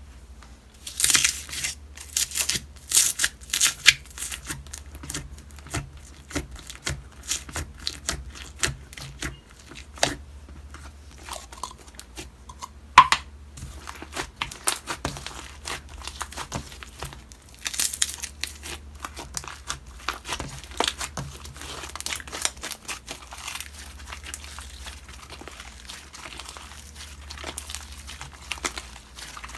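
Homemade slime being squished, stretched and poked by hand, giving an irregular run of crackly clicks and small pops, with a few sharper, louder pops.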